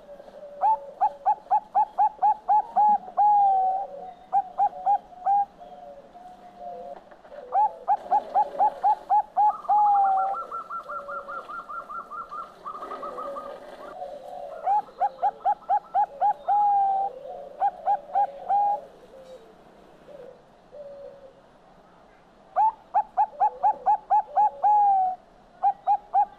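Zebra dove (perkutut bangkok) singing. It gives four phrases, each a quick run of staccato coos lasting about two and a half seconds that ends in a longer drawn-out note, with a few short coos after it. Fainter cooing can be heard between the phrases.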